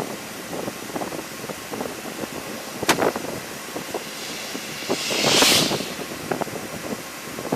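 Vehicle driving along, with road and wind noise and irregular small knocks. There is a sharp click about three seconds in, and a whoosh about five seconds in that swells and fades.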